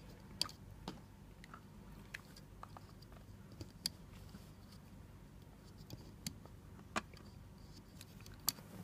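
Faint, scattered clicks and taps of fingers handling a plastic loom band board and its pegs, about half a dozen sharp ticks over a low steady hum.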